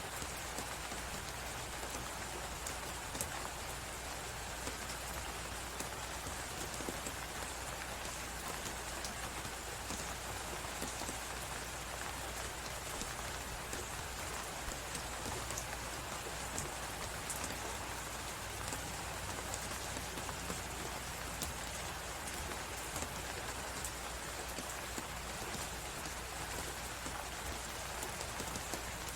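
Winter ambience of a blizzard and a fireplace: a steady hiss of wind and snow, dotted with small, sharp fire crackles.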